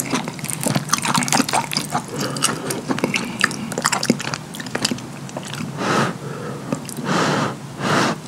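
Utensil digging through gooey, cheese-topped lasagna in a foil pan: a fast run of wet, sticky clicks and squelches as the melted cheese is pulled into strings. Three short breathy rushes come in the last few seconds.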